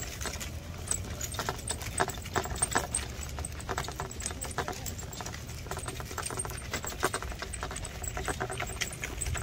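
Stroller wheels and footsteps crunching along a sandy dirt-and-gravel path: a continuous, irregular run of small crunches and clicks over a low rumble.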